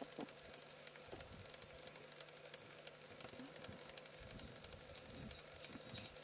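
Near silence: a faint steady hiss and hum, with a few soft low knocks scattered through it.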